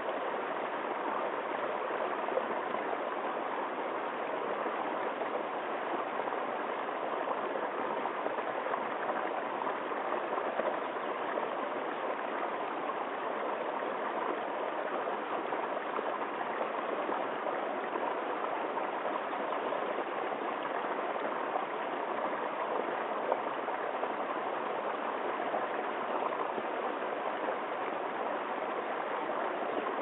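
Small forest brook spilling over a low cascade into a pool, with a steady, even rush of running water.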